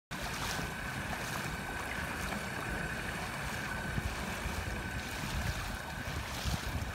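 Motor on an inflatable kayak running under way, a steady faint high whine over water splashing against the hull and wind rumbling on the microphone.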